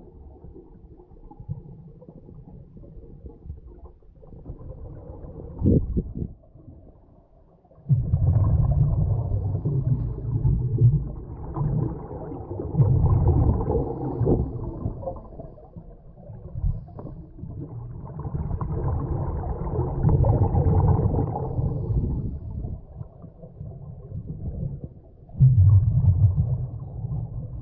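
Scuba regulator exhaust bubbles heard underwater: a diver's exhalations come as muffled, rumbling bubble bursts lasting a few seconds each, four times, with quieter gaps between. A short knock comes about six seconds in.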